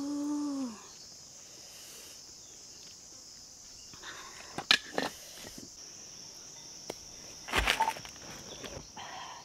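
Steady high-pitched insect chirring, with a short hum-like voiced sound at the start and a few sharp clicks and knocks, the loudest about halfway through and again near the end.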